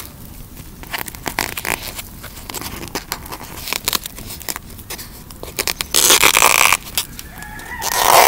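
Wood campfire crackling and popping with sharp snaps. Two louder drawn-out sounds break in, one about six seconds in and one near the end.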